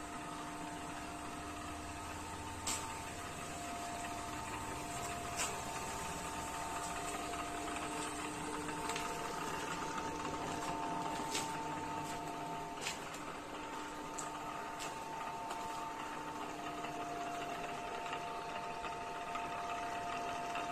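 PM-200 milling machine with a 3 HP motor running while drilling a hole in steel plate: a steady mechanical hum with several whining tones that break off and come back, and scattered sharp ticks.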